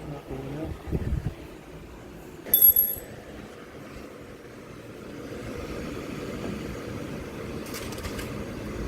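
A short, bright metallic clink with a brief ring about two and a half seconds in, from deadbolt lock hardware being handled. It sits over a steady background noise that grows a little louder after about five seconds.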